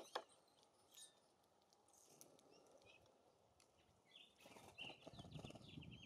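Faint small songbird calls: a quick run of high chirps from about four and a half seconds in, over low wind rumble on the microphone. A couple of sharp clicks come right at the start.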